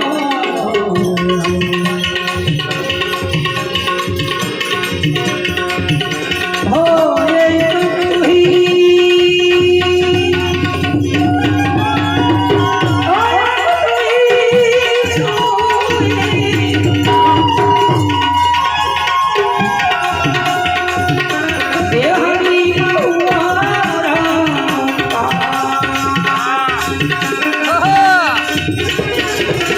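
Instrumental bhajan interlude: tabla playing a steady rhythm under a melody of held harmonium notes.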